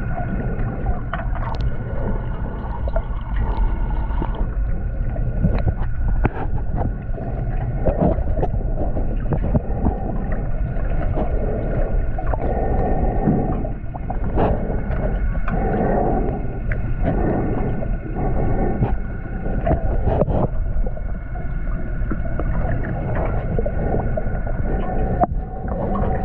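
Underwater sound picked up by a GoPro in its waterproof housing: a steady low rumble with scattered knocks and clicks, and faint steady tones underneath it.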